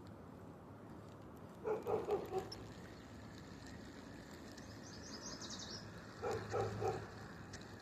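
An animal calling outdoors twice, each time a quick run of three or four harsh pitched calls, the first about two seconds in and the second near the end. A small bird trills briefly and high between the two runs, over a faint steady low hum.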